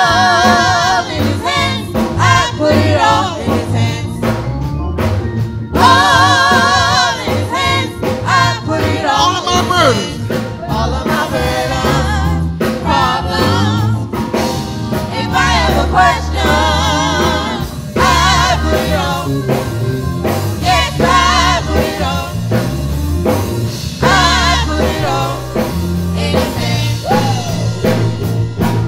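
Gospel praise song performed live: several voices singing with heavy vibrato over a band with bass and drums.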